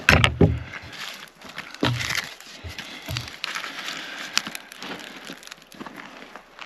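Dry sticks and twigs snapping and crunching in irregular cracks, a few sharper breaks standing out among them.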